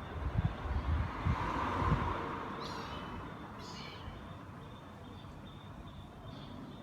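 Kittens mewing: two short, high-pitched mews about three and four seconds in, after soft low thumps in the first two seconds.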